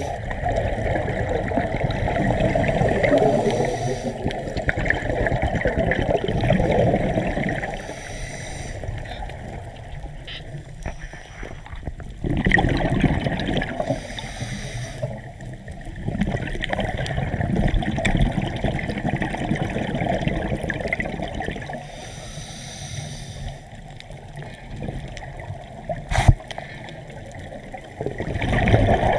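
Water gurgling and sloshing, swelling and fading every few seconds, with a single sharp knock near the end.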